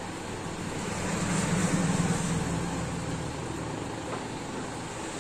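Vijay Villiers MK12 single-cylinder engine running. It speeds up for about a second and a half, a second in, then settles back, while its carburettor screw is turned with a screwdriver.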